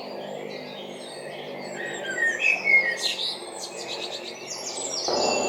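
Small birds chirping in short scattered calls over a low steady hum. A rushing, wind-like noise comes in near the end.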